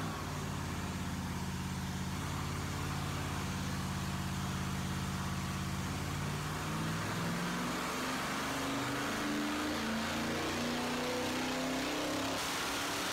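GM LS V8 running on an engine dyno, holding steady revs for about six seconds, then climbing steadily in revs through a dyno pull.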